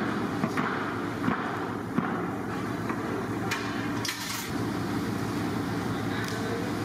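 Metal kebab skewers knocking and clinking against a large aluminium vat as cooked chicken is pushed off them, a few sharp knocks in the first four seconds, over a steady low hum.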